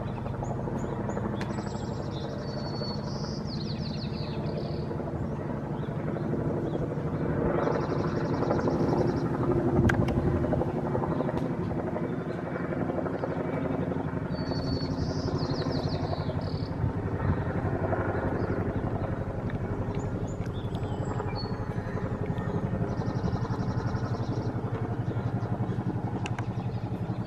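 Steady low drone of boat engines carrying across open water, swelling a little about a third of the way in. A songbird sings short trilled phrases every few seconds over it.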